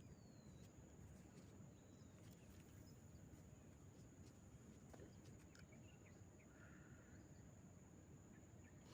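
Near silence: faint outdoor ambience with a steady high-pitched whine and a few faint ticks and short chirps.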